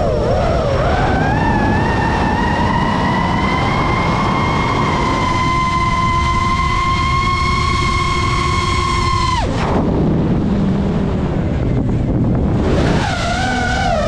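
FPV quadcopter's motors and propellers whining over a steady rush of air. The pitch climbs over the first couple of seconds, holds steady, then drops away suddenly about two-thirds of the way through, and climbs again near the end.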